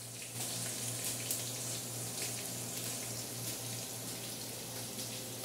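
Chopped aromatics frying in hot oil in a large aluminium pot: a steady sizzle with small crackles, over a low steady hum.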